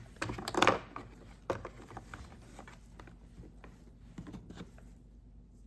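Pieces of a home tool kit being handled: a cluster of clicks and rattles in the first second and a sharp click about a second and a half in, then scattered faint ticks.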